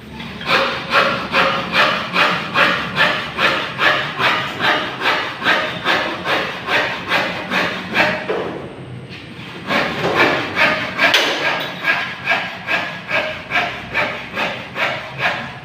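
Hand hacksaw cutting metal in steady back-and-forth strokes, about two to three a second, with a short pause about eight seconds in before the strokes pick up again.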